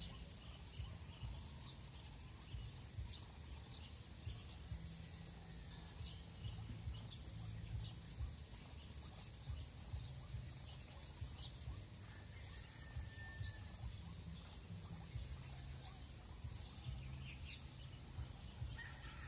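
Quiet outdoor ambience: a low rumble, a steady high-pitched whine, and scattered faint bird chirps.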